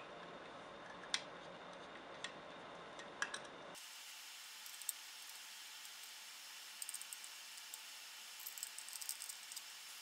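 Light metallic clicks and small rattles of a metal laptop drive bracket with an SSD in it being handled with a screwdriver, faint and sparse, with a few quick clusters in the second half, over steady low hiss.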